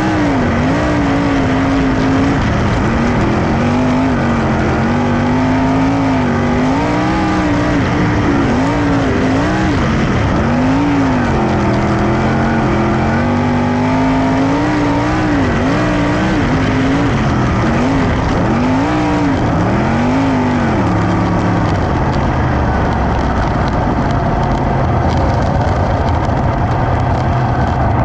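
Dirt-track sprint car engine running hard around the oval, its pitch rising and falling over and over as the throttle comes off and back on through the turns. About 21 seconds in the rise and fall stops and it settles into a steady lower drone as the car slows.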